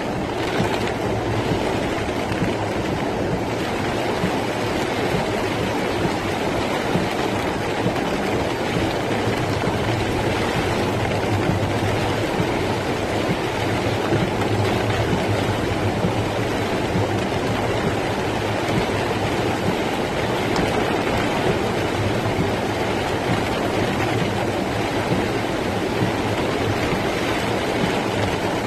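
Rainwater rushing along a flooded street in a cloudburst: a steady, unbroken rushing noise.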